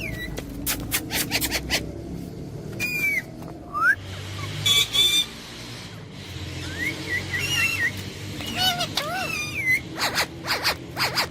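Parrot calling: short whistles that swoop up and down, with a quick run of rising chirps partway through and clusters of sharp, harsh calls near the start and near the end.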